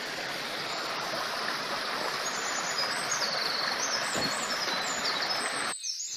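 Creek water rushing and splashing over rocks in small cascades, a steady even rush that breaks off abruptly shortly before the end.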